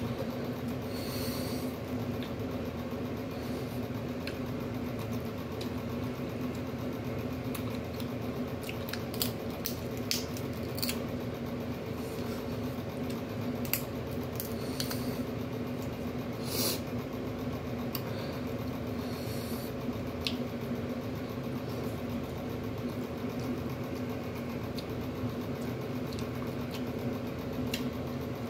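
Boiled seafood shells being cracked and peeled by hand: scattered sharp clicks and wet squishing over a steady low hum.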